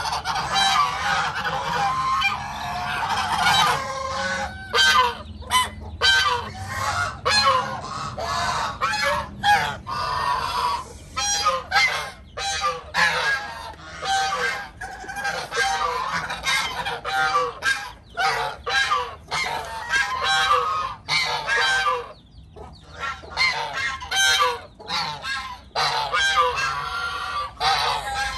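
Geese honking, many calls following one another and overlapping with hardly a break.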